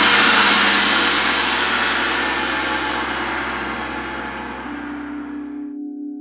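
A gong sounding loudly, its wash slowly dying away, then cut off about six seconds in. Just before the cut, a singing bowl's steady ringing tone comes in and carries on alone.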